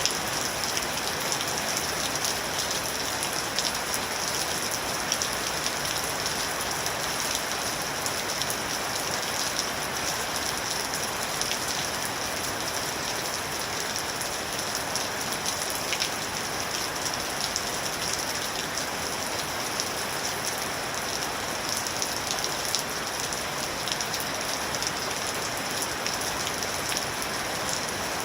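Steady rain falling, an even hiss of many drops with small individual drop ticks throughout.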